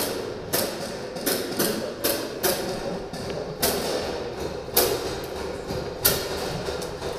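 Airsoft gunfire in a bare room: irregular sharp snaps and knocks, roughly two a second, with the two loudest near the end.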